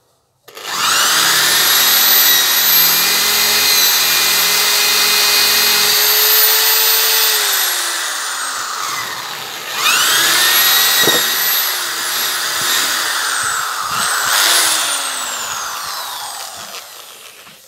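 Hyundai D-850 Expert corded hammer drill running at medium speed, boring holes into a wooden board. The motor whine spins up about half a second in and runs steady, slows in pitch and stops about halfway through, then starts again and winds down toward the end.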